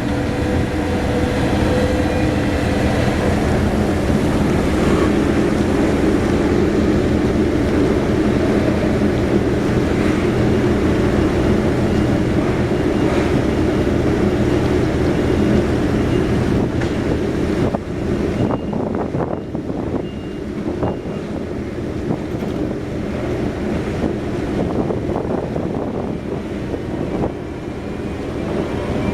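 Steady engine drone with several steady tones and wind buffeting the microphone; about two-thirds of the way in the drone eases a little and scattered knocks and clatters come through.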